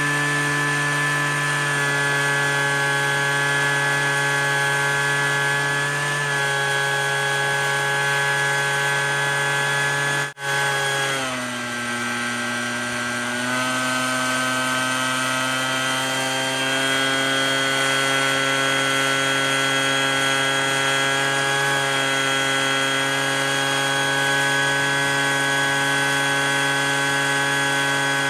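A backpack leaf blower and four shop vacuums running together, pulling air through a 4-inch corrugated hose into a steel drum: a steady whine with several pitches at once. About ten seconds in the sound cuts out for an instant, then the pitch sags for a couple of seconds and climbs back.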